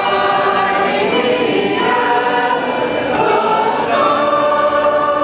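A group of voices singing a hymn together, in long held notes.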